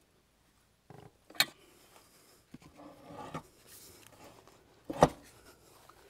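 Handling noises from the backhoe seat and its steel mounting hardware being worked on: a sharp click a little over a second in, faint rubbing and small knocks, then a louder knock about five seconds in.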